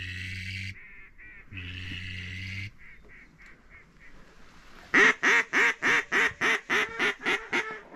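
Duck call blown in a loud, rapid descending series of about a dozen quacks, the mallard hail call, starting about five seconds in and fading toward the end. Before it come two long steady notes and a few faint quacks.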